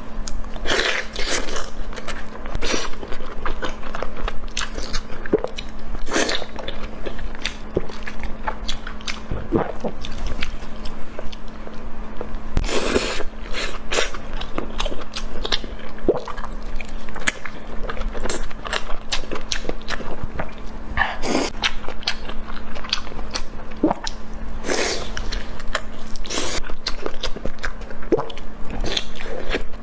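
Close-miked eating: a person biting and chewing food, with irregular crisp crunches and wet mouth sounds throughout, over a faint steady hum.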